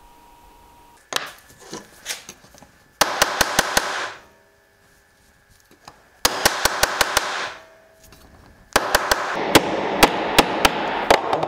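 Hammer tapping quickly on the steel leg of an old hand-forged drawing compass laid on a wooden board: a few light knocks, then three runs of rapid strikes, the last one the longest.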